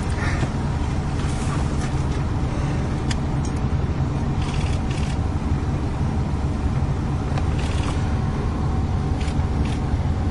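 Steady low rumble of a car running, heard from inside the cabin, with a few brief clicks or knocks scattered through it.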